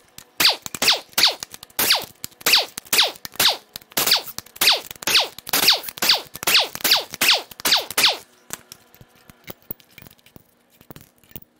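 Impact wrench hammering on the cylinder-head bolts of a GM LT1 small-block V8, in short repeated bursts of about three a second, each falling in pitch. It stops about eight seconds in, and faint clicks of the loosened bolts being handled follow. The head bolts come out easily because they were not very tight.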